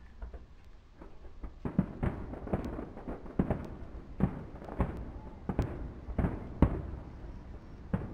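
Aerial firework shells bursting in a quick series of sharp bangs, one or two a second, each trailing off in a short echo; the bangs start about a second and a half in.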